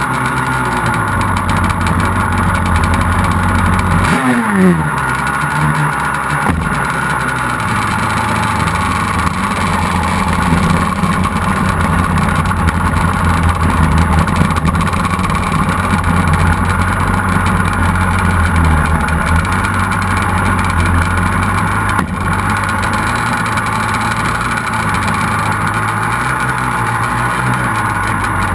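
Banshee-based twin-cylinder two-stroke engine of a sand drag quad, heard from on board, running hard for the first few seconds, then dropping sharply in revs about four seconds in. It then runs on steadily at low revs.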